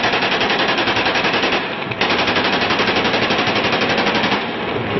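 AK-47 rifles fired into the air on full automatic: two long bursts at about ten rounds a second, with a short break a little under two seconds in. The firing stops about four and a half seconds in.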